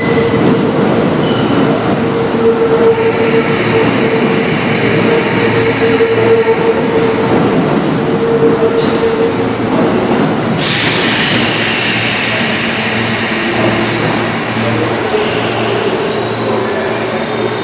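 Kintetsu 21000 series Urban Liner Plus electric train standing at the platform, its equipment humming steadily. A little over ten seconds in comes a sudden loud hiss of compressed air from the train's pneumatics before it pulls away.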